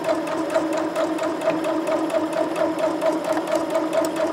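Janome domestic electric sewing machine running steadily, stitching through fabric: a steady motor hum with a rapid, even clatter of needle strokes.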